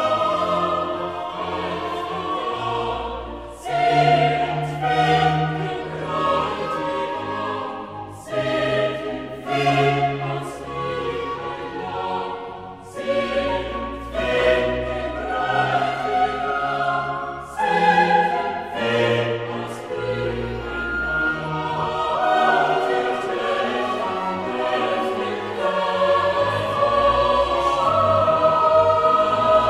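Classical choral music with orchestra: a choir singing sustained notes over strings and low bass.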